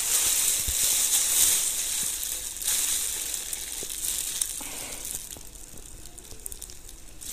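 Plastic bag worn as a glove crinkling and rustling as a fistful of wet grated radish is squeezed to wring out its water. The rustling is strongest in the first few seconds, then fades and dies down after about five seconds.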